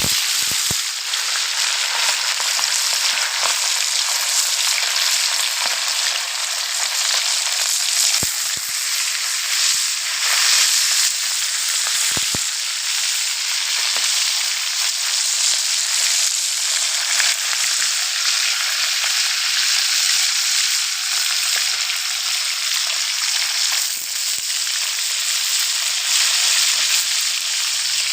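Small mujair (tilapia) frying in hot oil: a steady, loud sizzle with a few scattered pops.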